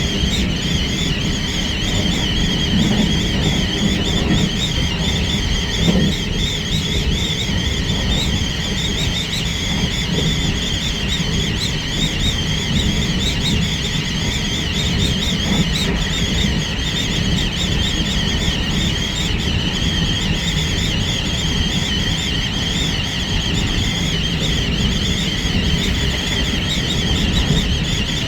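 Hakodate Liner electric train running at speed, heard from inside the carriage: a steady low rumble of wheels on the rails with wind noise and a high, wavering whistling whine over it.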